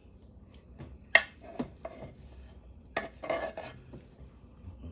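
Kitchen dishes and utensils clattering: a sharp knock about a second in, another half a second later, then a short run of clinks and scrapes near the three-second mark.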